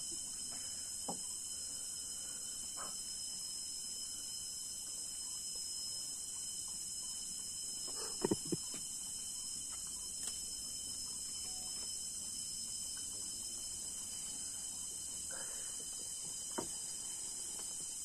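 Steady, high-pitched drone of rainforest insects. A few short knocks break in, the loudest a quick cluster about 8 seconds in.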